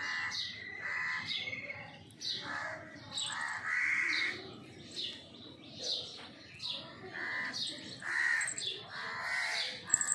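Several birds chirping and calling all through, with many short, overlapping notes, some falling in pitch, repeated every half second or so.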